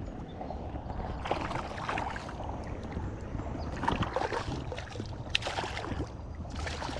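Water splashing and sloshing in three bursts as a hooked bass is landed in the shallows, over a low wind rumble on the microphone.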